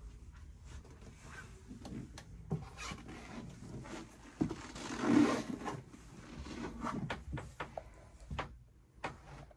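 Scattered clicks, knocks and rustles of someone moving about a boat's wood-panelled cabin with a handheld camera. There is a louder rushing burst about five seconds in, over a faint low rumble.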